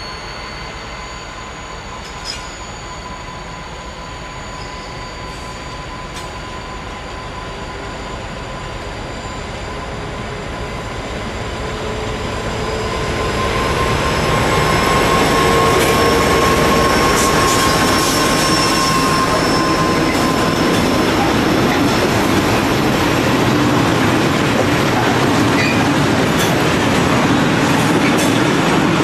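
DB Class 232 diesel locomotive pulling a freight train away under power, its engine running with a steady whine that grows louder as it approaches and passes about halfway through. The open freight wagons then roll by with continuous wheel and rail noise.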